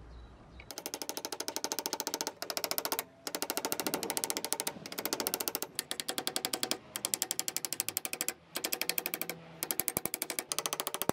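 Hammer striking the threaded end of a bronze knife handle in fast runs of sharp, ringing metal taps, about ten a second with brief pauses, starting just under a second in. The blows are driving the handle off a blade tang seized in it by rust.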